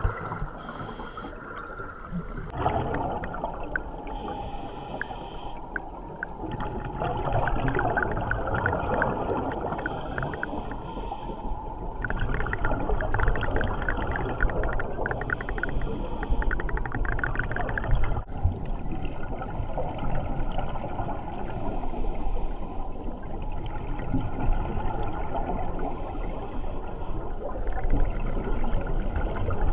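Scuba divers' regulators breathing underwater: a muffled rush and gurgle of exhaled bubbles that comes in bursts every five or six seconds over a steady low wash.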